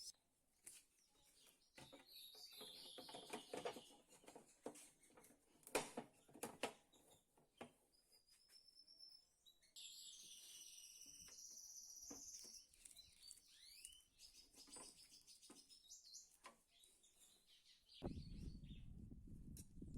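Small birds chirping faintly, with scattered light clicks and knocks. A low rumbling noise comes in near the end.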